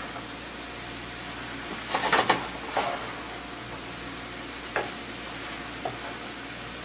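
Wooden spoon stirring and scraping sliced potatoes, kielbasa and sauerkraut around a frying pan over a steady sizzle of frying sausage fat. There is a burst of scraping about two seconds in and a couple of single knocks of the spoon later.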